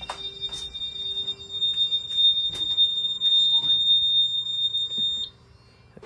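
Simplex 4100ES fire alarm control panel's built-in sounder giving a steady high-pitched tone for a supervisory condition from the ground-floor CO detector zone. It grows louder and cuts off suddenly near the end, when the alarm is acknowledged. A few light knocks from a door and footsteps sound along with it.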